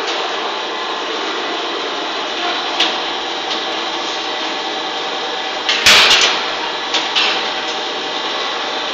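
P2S 36-4 tunnel pasteurizer running: a steady mechanical noise, with a few sharp clacks and a loud clatter about six seconds in.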